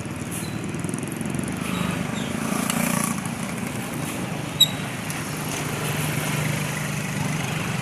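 Motor vehicle engine running steadily with a low drone, and one short sharp click about halfway through.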